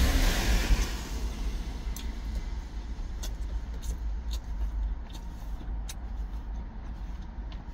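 Low steady rumble of the truck's idling engine heard from inside the cab, with a vehicle swishing past in the first second. Several light clicks of wooden chopsticks against the plastic lunch tray are scattered through the rest.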